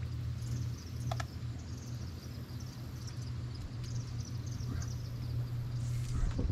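River outdoor ambience: a faint high buzz of insects over a steady low hum, with a few small clicks.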